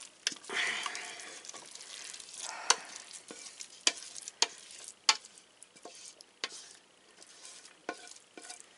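A wooden spoon scrapes a thick, wet rice pudding mix of rice, milk, eggs and raisins out of a stainless steel pot into a casserole dish, with soft squelching of the rice. Sharp knocks of the spoon against the metal pot come every second or so.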